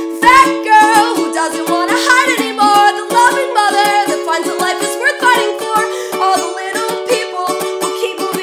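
Ukulele strummed in a quick, steady rhythm, with a woman singing long held notes over it.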